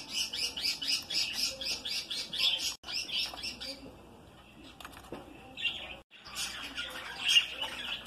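Budgerigars chirping in a fast string of short, high chirps, about five a second, which fade for a second or so just past the middle and then pick up again.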